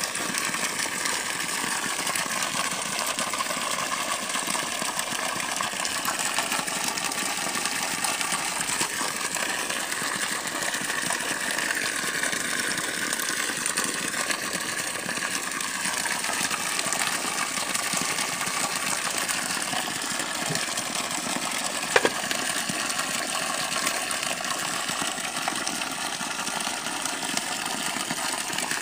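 Engine-driven borehole pump running steadily while water gushes out of the outlet pipe in a thick, strong stream. One short sharp knock about three-quarters of the way through.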